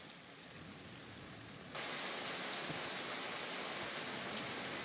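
Steady hiss like rain, with faint scattered ticks, that starts abruptly about two seconds in over a fainter background hiss.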